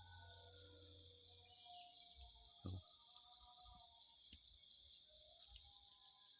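Steady, finely pulsing chorus of crickets, with faint bird calls. One short sound falls steeply in pitch a little under three seconds in.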